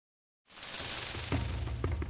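Intro music starting after half a second of silence: a hissing swell, joined about a second later by a low pulsing beat and light percussive clicks.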